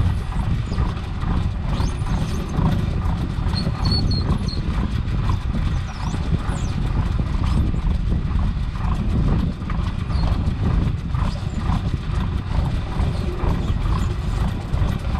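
A gillnet being hauled aboard a fishing boat by hand: many small irregular knocks and rattles from the net and its gear over a steady low boat-engine rumble.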